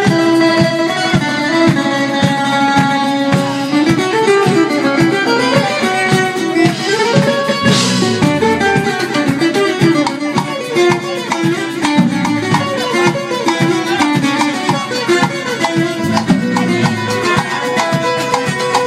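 Live band playing a song: strummed acoustic guitar and sustained melody notes over steady percussion, with a cymbal crash about eight seconds in.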